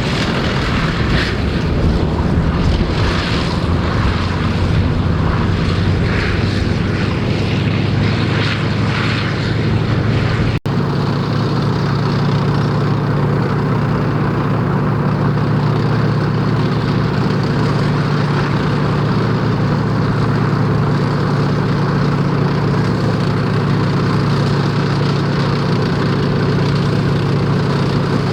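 Heavy military vehicle engine running with a steady low drone. About ten seconds in the sound breaks off sharply and picks up again as a smoother, even engine drone.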